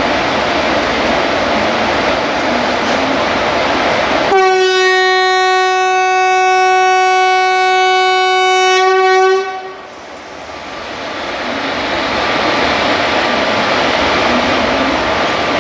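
Steady train noise, then a long single-tone blast of about five seconds from the horn of a WAP-4 electric locomotive, cut off sharply, after which the train noise builds up again as the train departs.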